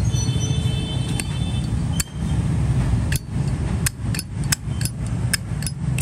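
Zippo lighter handled with a run of about nine sharp metallic clicks, closer together after about three seconds, as its hinged lid is flicked open and snapped shut.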